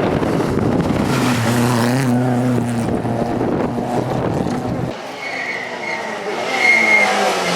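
Rally car engine running hard at a steady pitch for a few seconds, then easing off suddenly about five seconds in. A high squeal follows near the end as the car goes through the stage.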